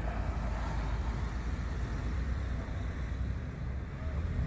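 Steady low rumble of outdoor street noise, even in loudness throughout.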